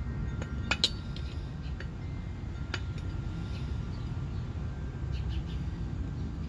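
Steel V-belt pulleys from a tiller mule drive clinking against each other as they are handled. Two sharp clinks with a short ring just under a second in are the loudest, followed by lighter clinks at about two and three seconds, over a steady low rumble.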